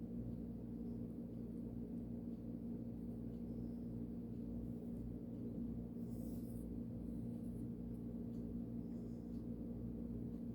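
Carbon steel pocket-knife blade drawn across a sharpening stone, faint scraping strokes now and then, one a little louder about six seconds in. Under it runs a steady low hum.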